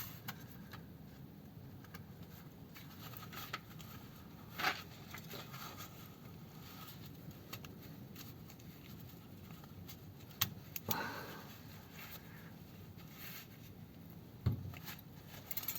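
Light handling of steel locking wire with pliers: faint scraping and rubbing, broken by a few short, sharp metallic clicks and taps spread through.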